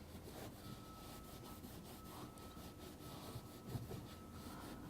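Faint rubbing and scuffing of a damp rag being wiped around a freshly soldered copper pipe fitting, cooling it and clearing off the excess flux.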